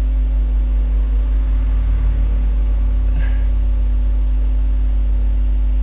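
Steady low electrical hum, loud and unchanging, with a faint brief sound about three seconds in.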